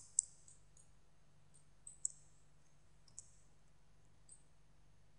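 Computer mouse buttons clicking a handful of times at irregular intervals, short sharp high clicks with the loudest pair near the start.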